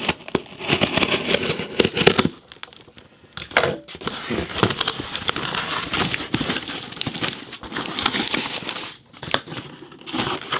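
A sealed cardboard shipping case being opened: packing tape torn along its seam and the cardboard flaps scraped and crinkled, in a run of crackles and tearing with a short pause a couple of seconds in.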